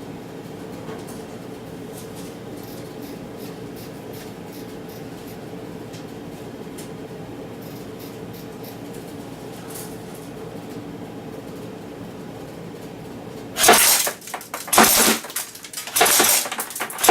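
A steady low hum, then near the end several short bursts of full-auto fire from a Cyma M14 electric airsoft rifle, with BBs clattering into a target box.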